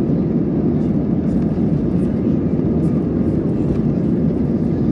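Steady, loud jet engine and airflow noise heard inside the cabin of an Airbus A320 airliner, a deep even rumble without changes.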